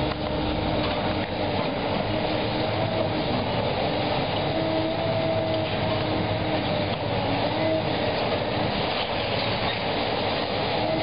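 Demolition excavator's diesel engine and hydraulics running under load, a steady rumble with a faint whine that wavers in pitch.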